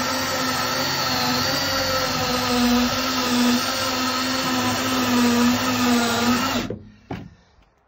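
A DeWalt cordless drill drives a Warn drill-powered winch, running with a steady whine as it winds in the steel cable and hauls a load. It cuts off abruptly near the end, followed by a few faint knocks.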